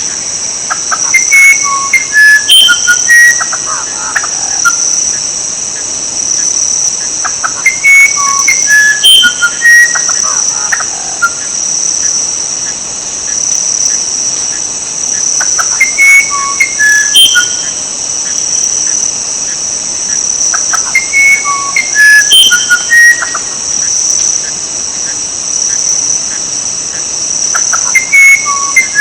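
A songbird singing a short phrase of clear whistled notes at several different pitches, the phrase coming back about every six to seven seconds. Under it runs a steady, high-pitched insect trill.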